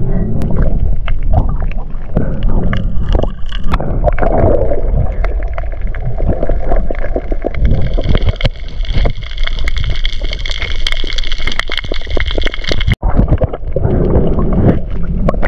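Underwater camera audio from a spearfisher swimming over a coral reef: muffled rushing and gurgling of water against the camera housing, with many sharp clicks throughout. A steady higher whine comes in for several seconds in the middle and stops abruptly.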